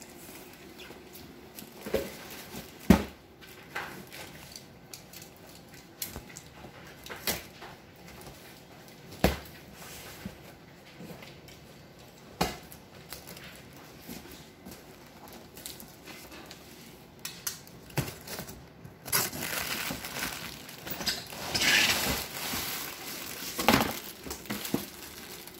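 A cardboard box for a children's folding tub is handled and opened on a tile floor, with scattered knocks and scrapes. Near the end comes a long, louder rustle of plastic wrapping as the wrapped tub is pulled out.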